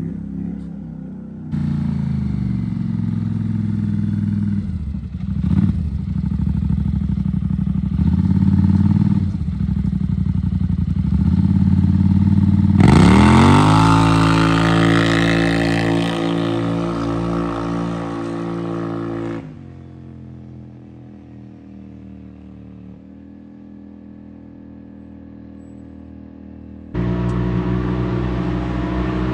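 Polaris Sportsman 850 ATV's twin-cylinder engine running hard under load during clutch testing, heard in several abruptly cut stretches. About 13 seconds in it revs up sharply and holds high. For most of the last third it runs quieter and slower, then picks up again near the end.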